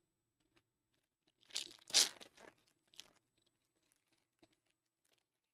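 A trading-card pack's foil wrapper being torn open, a rip about a second and a half in, loudest around two seconds, with a shorter tear at about three seconds and a few faint crinkles after.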